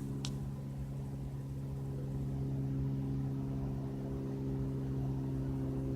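Single-engine Cessna light aircraft flying low overhead, its piston engine and propeller giving a steady drone, with a short click just after the start.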